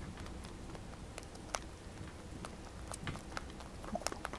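Netherland Dwarf rabbit chewing timothy hay: quick, irregular crunching clicks, several a second.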